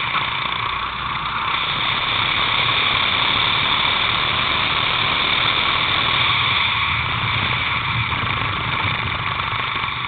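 Racing kart engine heard from a camera mounted on the kart, running at a steady pitch as a continuous high-pitched whine.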